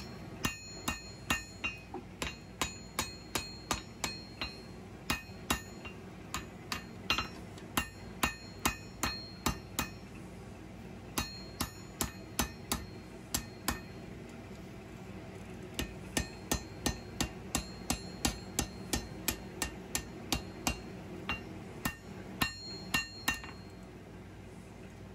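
Hand hammer blows on hot steel over an anvil, in runs of about two to three blows a second with short pauses, each strike ringing briefly. The smith is knocking down the corners at the back of a forged knife handle to work out a 'fish mouth'.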